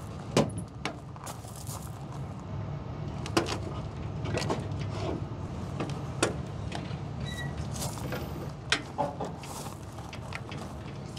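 Irregular metal clicks and clanks from a utility trailer being hitched to a pickup's ball hitch: the tongue jack crank, coupler and safety chains being handled. A steady low rumble sits underneath.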